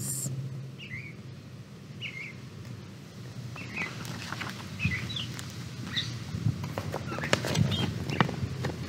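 A small bird chirping: short, high chirps every second or so. Light rustling and small knocks come in during the second half, as the book is handled.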